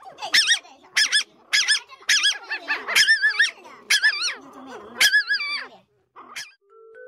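A young puppy howling: a run of short, high, quavering cries, about two a second, that tail off near the end.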